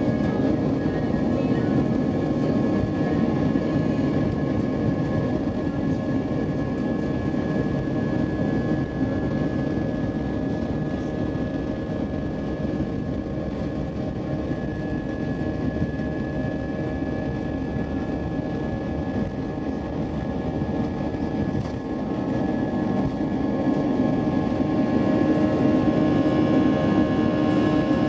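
Cabin sound of an Airbus A320-232 on its takeoff roll: IAE V2527 turbofan engines at takeoff thrust, a steady high whine over a dense rumble. It gets louder over the last few seconds.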